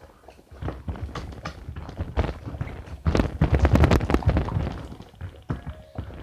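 Slime being squished and slapped roughly by hand: a rapid run of sticky clicks and thuds, loudest and densest from about three seconds in to about four and a half.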